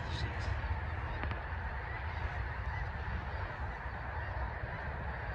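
A large flock of snow geese calling together, a dense, continuous din of overlapping honks, with wind rumbling on the microphone.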